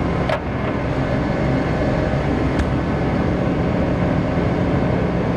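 Steady, loud rumble of an M1 Abrams tank's AGT1500 gas turbine engine, heard from inside the crew compartment. There is a short click just after the start and a fainter one about halfway through.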